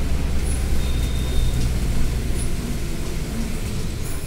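Wind buffeting the phone's microphone: a steady low rumble under an even hiss, with a few faint high chirps.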